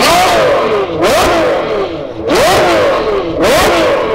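Ferrari F12's 6.3-litre V12 through a Kline Innovation exhaust, revved hard while driving. Four quick climbs in pitch, each falling away more slowly, about once a second.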